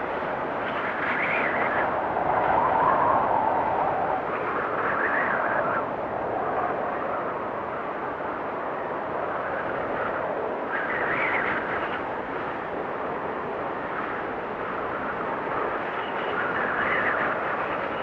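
Strong wind blowing in a snowstorm: a steady rush that swells in several gusts, the loudest a few seconds in.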